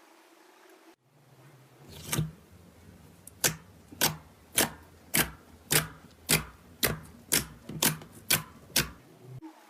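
Slime being pressed and poked in a steady rhythm, giving sharp clicking pops about twice a second, starting about two seconds in.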